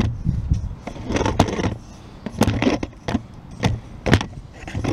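Handling clatter: irregular knocks and light metallic clinks, about half a dozen over a few seconds, with a low steady rumble underneath.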